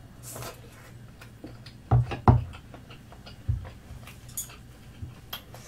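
Close-miked chewing of a mouthful of fish cake: scattered soft wet mouth clicks, with two stronger low thumps about two seconds in and another about a second later.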